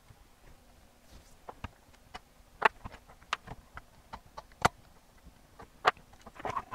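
Irregular sharp clicks and small taps as a screwdriver and small metal hardware work against an AV receiver's amplifier circuit board and heatsink, with about a dozen ticks at uneven spacing.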